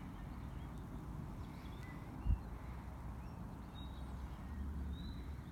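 Outdoor park ambience: a steady low rumble of wind on the microphone, with a few faint, short bird calls and a single low thump a little over two seconds in.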